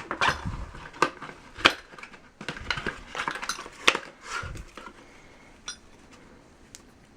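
Steel kunai throwing knives clinking and knocking against each other as they are handled and taken out of their packaging. There is a quick run of sharp metallic clinks over the first four seconds, then only a few light ticks.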